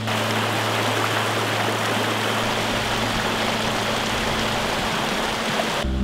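Shallow rocky river rushing over and around boulders: a steady, even rush of water that cuts off suddenly just before the end.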